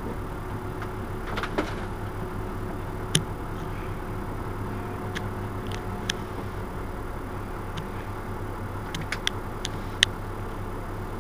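Mercedes-Benz Citaro C2 Euro 6 city bus engine idling steadily at a stop, with a low hum and a steady tone. Sharp clicks and taps sound now and then, a few of them in a cluster near the end.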